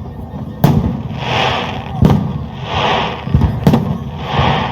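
Fireworks going off: sharp bangs about every second and a half, with a swelling hiss that rises and fades between them, over a low rumble.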